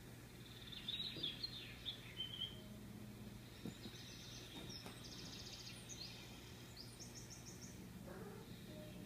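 High bird-like chirps in two spells, the second a quick pulsing trill, over a steady low hum.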